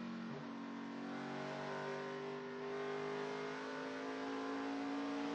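V8 engine of a NASCAR Chevrolet Silverado race truck running at racing speed, heard from its onboard camera. Its pitch dips briefly about a third of a second in, then climbs slowly and steadily.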